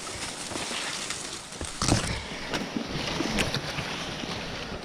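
Leaves and brush rustling against a landing net and gear being carried through thick undergrowth, with a few light knocks, the loudest about two seconds in.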